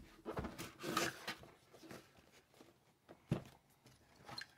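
A cardboard product box being opened and its packaging handled: rustling and scraping of cardboard and plastic, with a single sharp knock a little over three seconds in.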